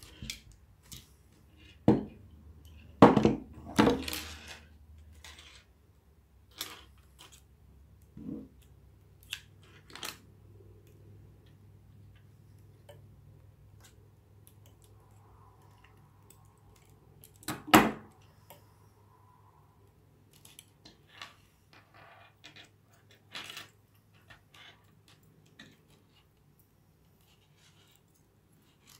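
Scattered clicks, snips and knocks of hand tools and tackle: crimping pliers, scissors and metal hooks handled and set down on a wooden table while a fishing leader is rigged. The loudest knocks come in a cluster about three to four seconds in, with another sharp one about eighteen seconds in.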